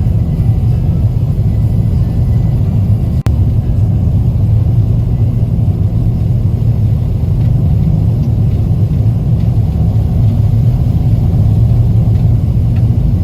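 Steady low road rumble of a car driving, engine and tyre noise, with a momentary dropout about three seconds in.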